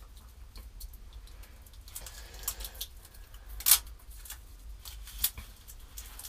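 Small handling noises: scattered light rustles and clicks, with the sharpest click a little past halfway through, over a low steady room hum.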